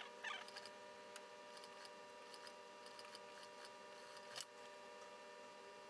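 Near silence: a faint steady hum, with a few soft clicks and rustles of suit cloth being handled at an industrial sewing machine at the start and one more click about four seconds in. The machine is not stitching.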